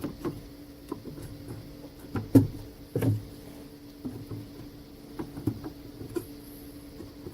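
A few scattered light knocks and clicks over a steady low hum, the loudest two coming about two and a half and three seconds in.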